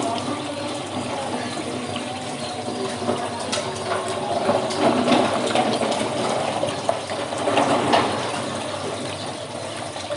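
Close-up wet chewing and slurping of mussels and clams in sweet-and-sour sauce, with scattered small clicks of shells being handled.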